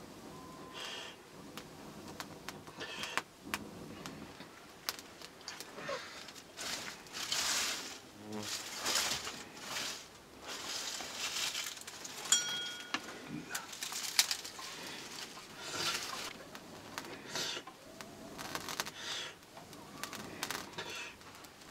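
A man blowing again and again on a small wood fire to kindle it, each breath a hiss lasting about a second, every second or two, with sharp clicks and crackles from the twigs.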